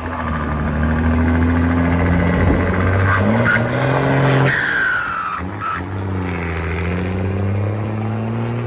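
Mercedes-Benz 1516 truck's turbocharged diesel engine under throttle, revs climbing. About five seconds in the revs drop and a high turbo whistle falls in pitch, then the engine pulls up again.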